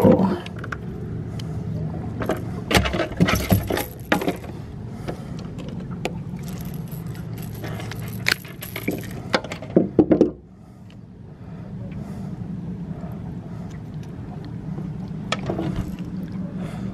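Knocks and rattles as a freshly caught blue catfish is handled and unhooked on a boat deck, in two clusters a few seconds apart, over a steady low hum.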